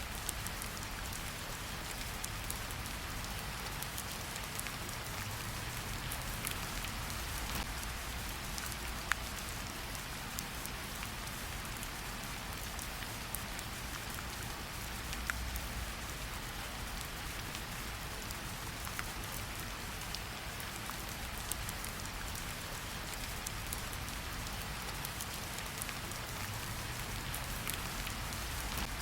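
Steady rain falling in a forest, with many close individual drops ticking on leaves and surfaces. A few single drops land louder than the rest.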